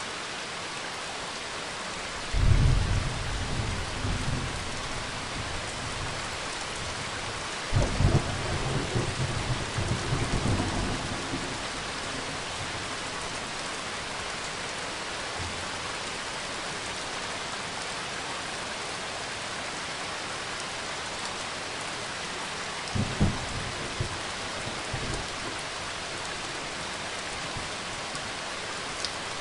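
Rain-and-thunder sound track: a steady hiss of falling rain with three low rolls of thunder, the first about two seconds in, the second and longest around eight seconds in, and a shorter one near twenty-three seconds.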